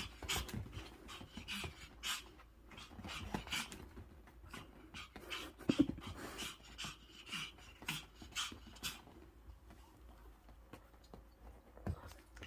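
Pomeranian panting, short noisy breaths one after another, with one louder short sound about halfway through.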